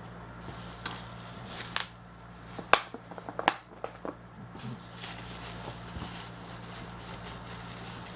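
Plastic miniature packaging being opened and handled: several sharp clicks and crackles in the first half, then a softer rustling.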